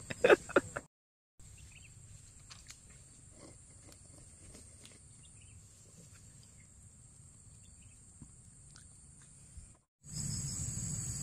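Faint, steady high-pitched drone of insects, with scattered faint ticks. About ten seconds in, a louder low rumble joins it.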